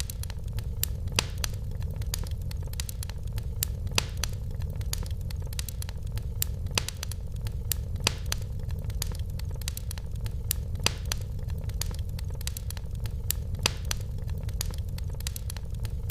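Wood fire in a fireplace crackling: frequent sharp, irregular pops and snaps over a steady low rumble.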